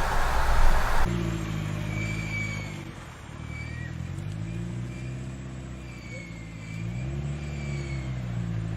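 A second of loud rushing noise, then a cut to a car engine running at varying speed, its pitch falling and rising again as it is revved, with a faint high whine above it.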